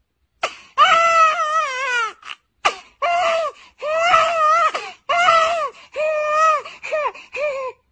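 A man crying like a baby in a high, wavering voice: a string of drawn-out wails, the longest about a second, broken by short gasps.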